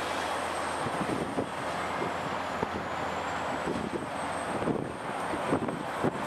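Caterpillar 345C L UHD excavator's diesel engine running steadily while broken concrete rubble clatters and crashes into a steel dump-truck bed as the bucket is emptied, a string of irregular knocks in the second half.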